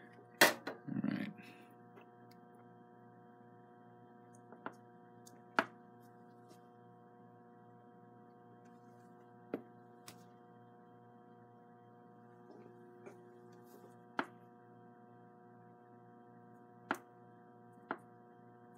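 A faint, steady electrical hum made of several even tones, with about a dozen light, sharp clicks and taps scattered through it as a small pancake armature is handled and set on the rails of a static balancer.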